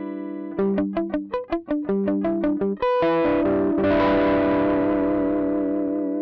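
Electric guitar played through a Joyo American Sound amp-simulator pedal, voiced after a Fender Deluxe amp, with a little overdrive. A held chord gives way to a quick run of single picked notes, about five a second. Then a chord is struck and, about a second later, a fuller strum that rings on with a slight waver, slowly fading.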